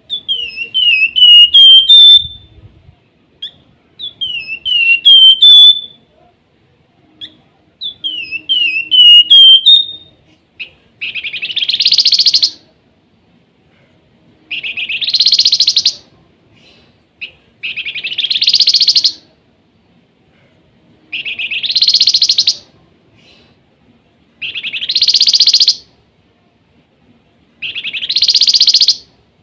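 Flamboyan (wergan jawa) songbird calling: three phrases of quick, downward-sliding whistled notes, followed by a run of harsher, buzzy bursts that repeat about every three and a half seconds.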